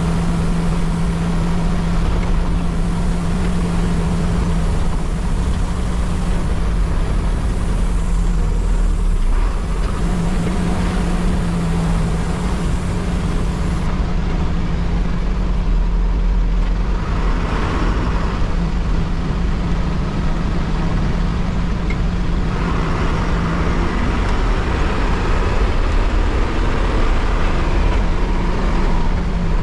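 Bus engine running at a steady drone under rumbling road noise, heard from inside the driver's cab. A rushing hiss swells briefly about halfway through and again for a few seconds near the end.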